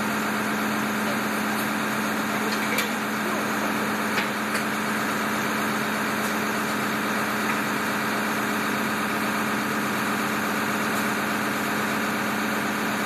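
Fire engine's motor running at a steady idle, an even, unbroken hum while its turntable ladder is raised.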